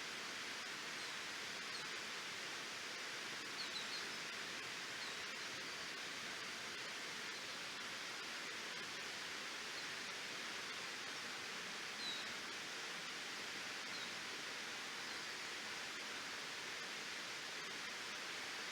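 Waterfall: a steady, even rush of falling water. A few short, high chirps sound over it, around four seconds in and twice more later.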